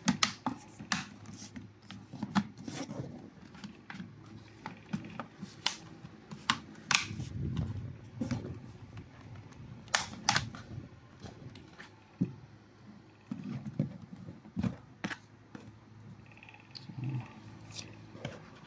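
Irregular sharp clicks and taps of hard plastic as hands handle a laptop's bottom case and its panels.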